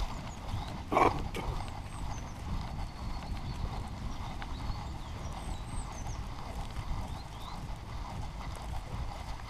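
Belgian Malinois moving over grass, its footfalls and body jolts coming through as uneven thudding and rustle on a camera strapped to its back. One short, louder sound stands out about a second in.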